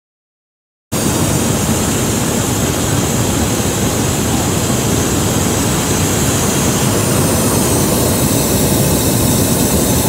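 Hot air balloon's propane burner firing in one long continuous blast: a loud, steady roar that starts about a second in.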